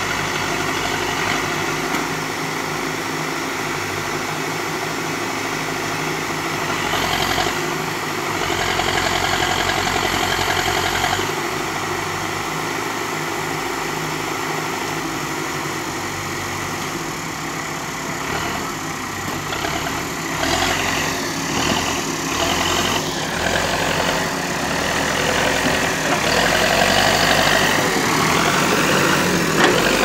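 Diesel engine of an Escorts backhoe loader running steadily as it works, swelling about a quarter of the way in and again in the second half, loudest near the end.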